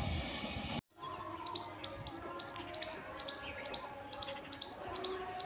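Small birds chirping in short, high calls over a faint background hum. Before that comes the last of a train's noisy rumble, which cuts off abruptly just under a second in.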